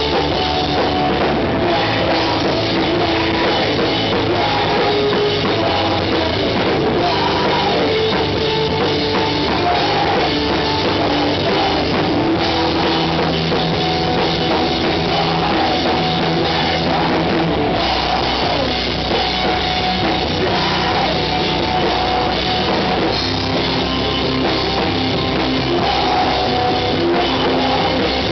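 A rock band playing loud and live: a drum kit with cymbals and an electric guitar, going without a break.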